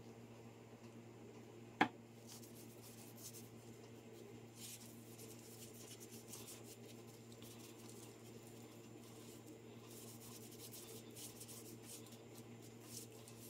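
Faint scratchy rubbing of a cloth wiping paint along a wooden walking stick, over a steady low hum, with one sharp knock about two seconds in.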